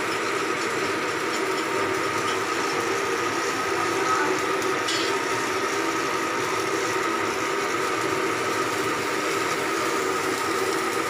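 Steady machinery drone with a constant hiss, mixed with the sizzle of electric arc welding.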